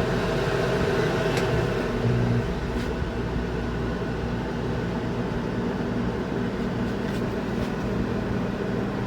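Coleman Mach rooftop RV air conditioner running steadily just after switch-on, a constant hum with a wide even hiss of moving air and a few faint ticks.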